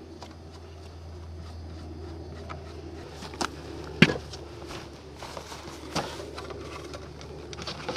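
A few scattered sharp clicks and knocks of hand tools on a moped's rear wheel hub, the loudest about four seconds in, over a low steady hum.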